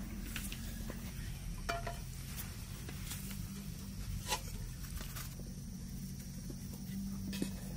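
Mushrooms being trimmed with a small knife and dropped into metal bowls: scattered light clicks and taps, roughly one a second, over a steady low background rumble.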